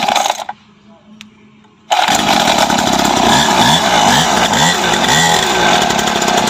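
A 49cc mini dirt bike's small two-stroke engine is started with the pull cord: a short burst as the cord is pulled, then about two seconds in the engine catches and keeps running with a high buzz, its pitch wavering up and down.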